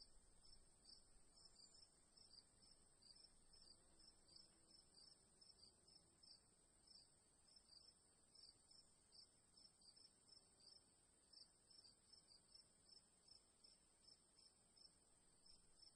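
Crickets chirping faintly: a steady high trill with separate short chirps repeating over it about two to three times a second.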